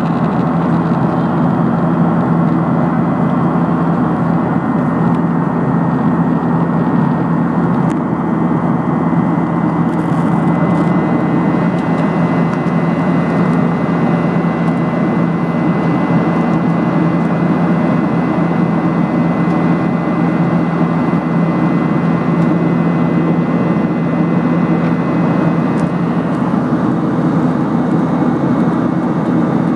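Steady cabin noise inside a Boeing 737-800 in flight: the low drone of its CFM56-7B turbofan engines and the rush of air past the fuselage. A faint high whine runs through most of it, fading near the end.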